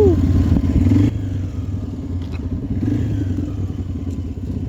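Motorcycle engine running at low speed with a steady, rapid putter; it gets quieter about a second in.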